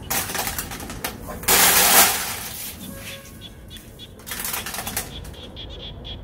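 Unhusked rice grains poured from a hand into a plastic bucket, pattering and rattling on the plastic bottom. The loudest pour comes about a second and a half in and lasts about a second, with a lighter patter of grains a few seconds later.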